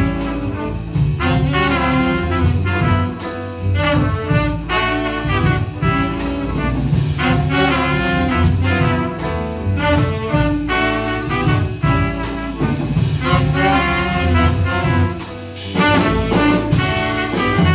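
Live small-group jazz: a horn soloing in flowing melodic phrases over piano, double bass and drums, with a brief gap between phrases about fifteen seconds in.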